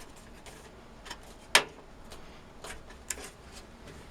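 A few light clicks and taps of thin sheet metal, one sharper snap about a second and a half in, as a motherboard I/O back plate is pressed into the PC case's rear opening.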